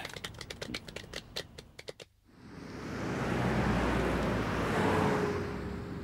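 A small group applauding for about two seconds. After a brief gap, city traffic noise with a low rumble swells up.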